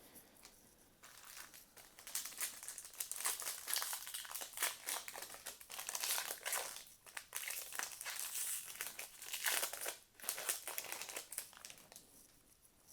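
Crinkling of a trading-card pack's foil wrapper being handled and opened: a dense run of crackles from about a second in, easing off about ten seconds in.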